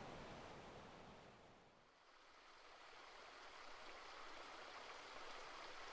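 Faint rushing water of a recorded waterfall fading out over the first two seconds, then the trickle of a gentle stream fading in.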